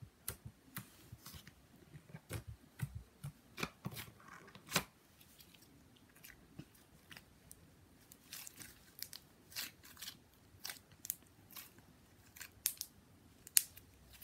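Pink butter slime being stretched and squished by hand, giving irregular sharp clicks and soft crackles. The clicks come in clusters, thinning out around the middle and picking up again later.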